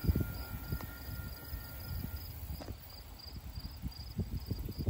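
Field insects, crickets by their sound, chirping in a steady rhythm of about three chirps a second. Wind rumbles irregularly on the microphone underneath.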